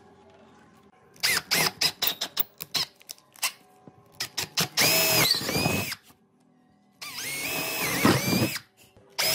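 Electric drill with a twist bit boring holes into a pine board. About a second in come a string of short trigger bursts, then two longer runs of a second or more each, the motor whine dipping and rising as the bit cuts.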